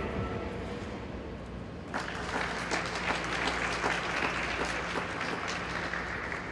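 Small audience clapping and applauding, starting about two seconds in as the program music's final note dies away.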